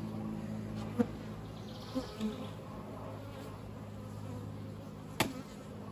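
Honey bees buzzing steadily around the hive, an even low hum. Two sharp clicks are heard, about a second in and just after five seconds.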